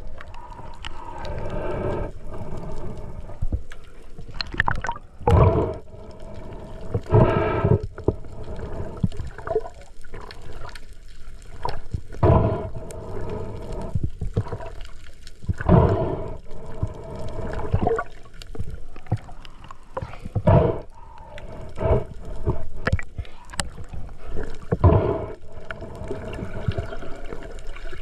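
Water gurgling and sloshing around the camera underwater, with a loud bubbling gush every few seconds.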